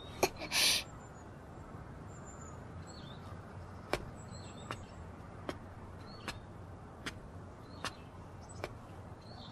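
Footsteps of leather loafers on stone paving, a sharp click about every 0.8 s from about four seconds in. Faint bird chirps sound in the background, and a short hiss comes just under a second in.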